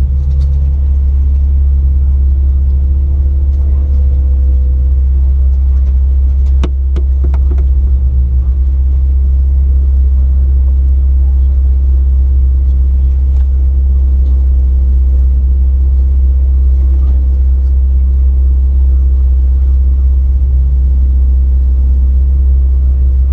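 Jeep Wrangler LJ engine running at crawling speed on a rocky trail, a heavy steady low drone. A few sharp knocks come about six to seven seconds in.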